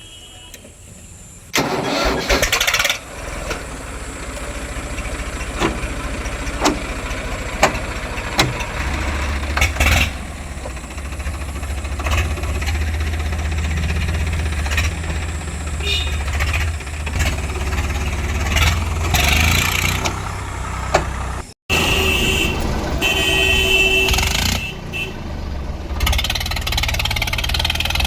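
A heavy farm machine's diesel engine running, with scattered knocks and clatter; the sound comes in suddenly about a second and a half in, and a deep low rumble grows stronger from about nine seconds. The sound drops out briefly about two-thirds of the way through.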